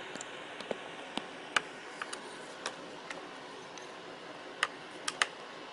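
Scattered light clicks and taps, about ten at irregular intervals, from a screwdriver working the lock screw of a laptop's CPU socket.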